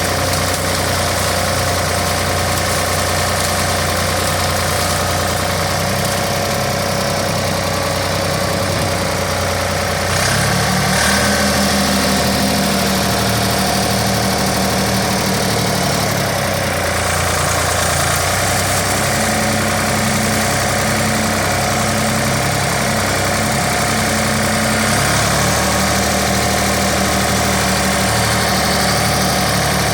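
Case 555 tractor-backhoe's diesel engine running steadily as the machine works the field. Its note steps up about a third of the way in, then shifts lower and higher a few more times as the engine speed and load change.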